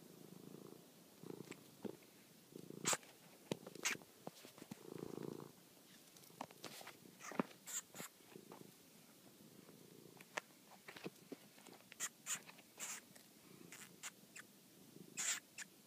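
Domestic cat purring in low stretches that come and go, with many short, sharp high-pitched clicks scattered through.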